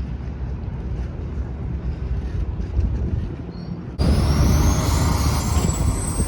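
Low steady rumble of a running vehicle; about four seconds in the sound switches abruptly to a louder rush with a high whine rising in pitch.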